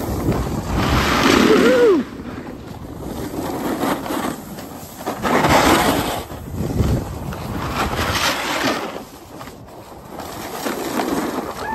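Skis scraping and hissing over packed powder and granular snow during downhill turns. The noise swells with each turn, several surges a few seconds apart, with wind rushing over the microphone.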